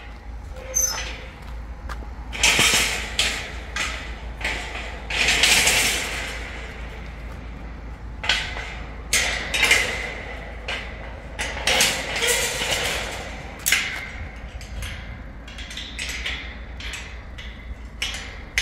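Green steel-mesh gate being shut, bolted and padlocked: repeated metal clanks and rattles of the gate frame, sliding bolt and padlock, coming irregularly throughout.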